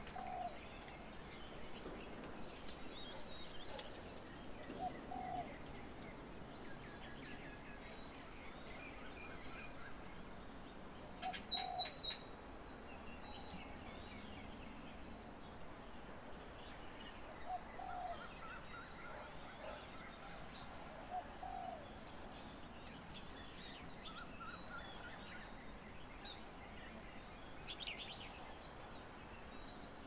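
Several birds calling and chirping together, with a short low call that repeats every few seconds and a brief cluster of sharp clicks a little before halfway.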